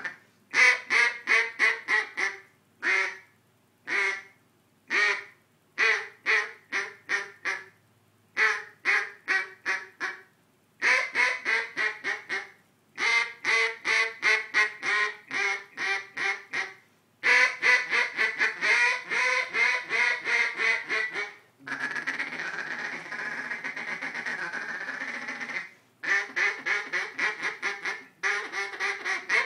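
A double-reed duck call (Double Reed Outlaw) blown by mouth in runs of quick, sharp quacks, several notes to a run with short pauses between runs. Near the middle there is one longer unbroken stretch of about four seconds before the quick runs resume.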